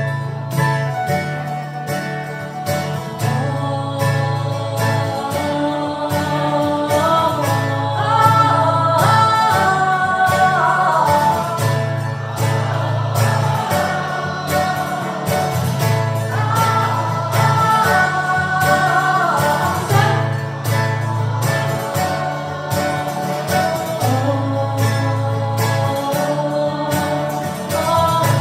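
Strummed acoustic guitar under a crowd singing long sustained 'ah' notes in two-part harmony, the sung lines stepping between pitches.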